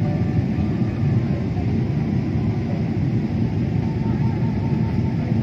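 Steady low rumble of an airliner's cabin noise, engines and airflow heard from a window seat while descending toward landing.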